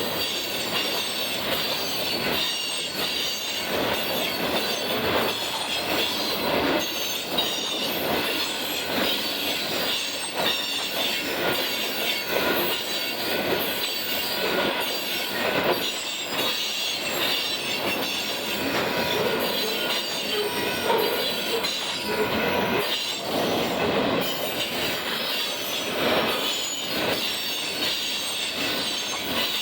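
Freight cars of a passing mixed freight train rolling by steadily, steel wheels clacking over the rail joints under a continuous high wheel squeal.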